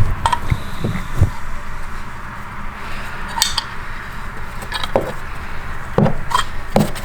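Scattered metal clinks and knocks of hand tools and brake parts being handled while fitting a brake caliper piston-compressor tool, over a steady low hum.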